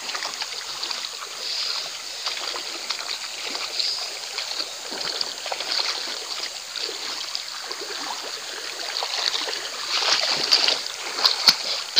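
River water flowing steadily, with a few sharp clicks near the end.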